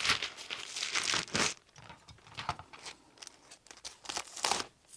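Crinkling and rustling as batting is handled for a bowl cozy, dense for the first second and a half, then a few brief rustles.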